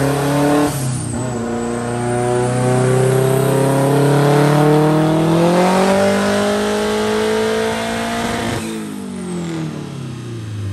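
Turbocharged Volvo engine in a race car making a pull on a chassis dyno. The revs climb steadily for about eight seconds, then the throttle is lifted and the revs fall away.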